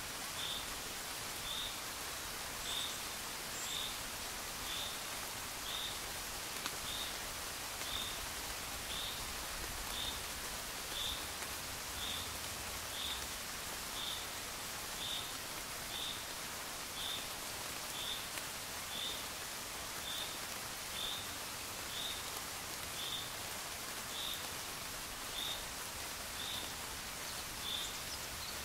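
Steady gentle rain, an even hiss, with a short high-pitched chirp repeating about once a second.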